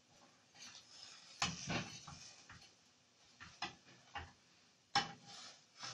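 Metal tongs and a spatula clicking and scraping against a grill pan as tortilla wraps are turned: a few light, separate knocks, the strongest about a second and a half in and near the end.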